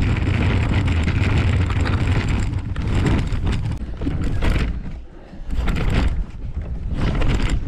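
Wheelchair rolling over a rough dirt-and-gravel path, a continuous low rumble of wheels and chair-mounted microphone shake, easing off briefly about five seconds in as it reaches the crossing gate.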